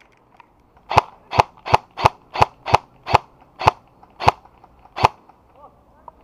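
Compact M4-style airsoft electric gun (PDW) firing ten single shots, about three a second at first and then further apart toward the end.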